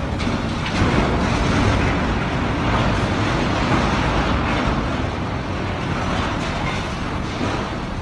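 A heavy vehicle running, giving a steady, loud, noisy sound with no clear pitch.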